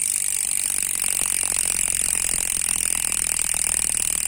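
Rear freehub of a Dartmoor Primal hardtail mountain bike clicking in a fast, steady buzz as the rear wheel freewheels, its pawls ratcheting over the engagement teeth. It is fairly loud and aggressive.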